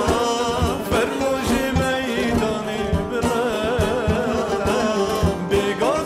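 Singing of a Middle Eastern folk melody, the voice wavering and ornamented, over a drum beat.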